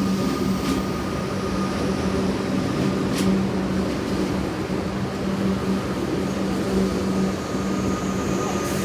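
Electric suburban train at a station platform, humming steadily: a low drone with a faint high tone above it.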